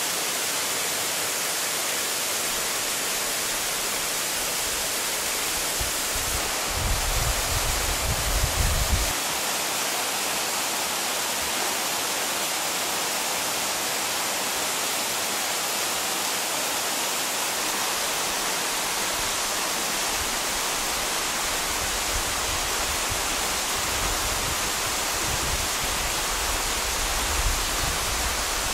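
Waterfall pouring steadily into a rock pool: an even, unbroken rush of water. Spells of low rumble come in under it about a quarter of the way in and again through the later part.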